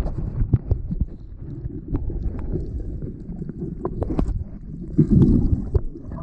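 Muffled underwater sound picked up by a camera held just below the surface: a low rumble of moving water with scattered light clicks and knocks. About five seconds in comes a louder swirl of water as bubbles churn around the giant trevally being held in the water.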